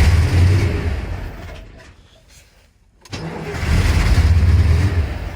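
A vehicle engine running with a deep rumble. It dies away about two seconds in and comes back abruptly about a second later.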